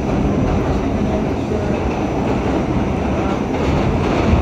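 R68 subway train running at speed through a tunnel: a loud, steady rumble of wheels on rail, with a few faint clanks and a louder one near the end.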